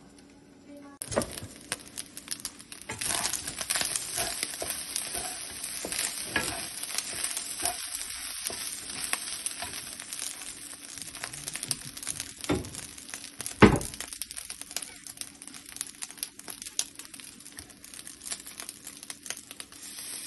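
Fried rice sizzling in a nonstick frying pan as it is stir-fried, with a wooden spatula scraping and tapping the pan. The sizzle starts about a second in, and one sharp knock stands out about two-thirds of the way through.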